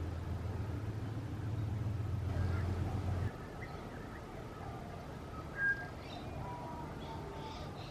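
Birds singing in a garden: scattered thin whistled notes, with one short louder note about five and a half seconds in. A low steady hum lies under the first three seconds and stops abruptly.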